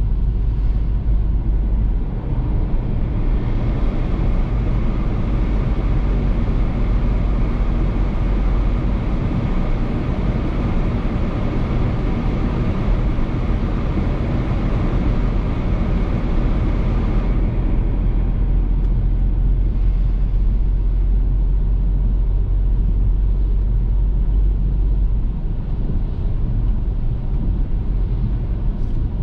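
Steady low rumble of a car driving on a wet road, with a hiss over it that grows louder about three seconds in and falls away about two-thirds of the way through.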